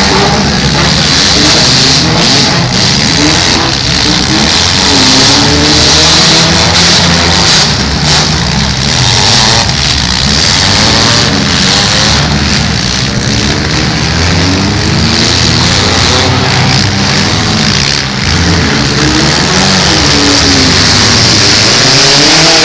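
Engines of several demolition-derby compact cars running and revving together, loud and continuous, their pitches rising and falling over one another.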